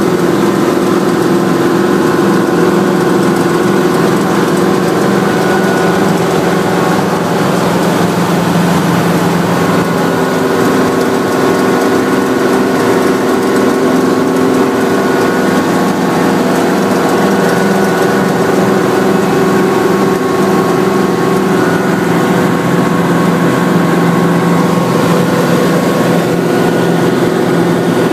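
Hughes 300 helicopter's piston engine and rotors running steadily in flight, heard from inside the cabin as a loud, even drone with a few held tones.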